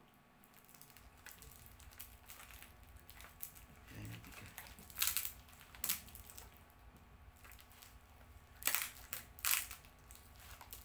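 Plant packaging being unwrapped by hand: the wrapping crinkles and rustles, with four sharp, louder rustles in the second half.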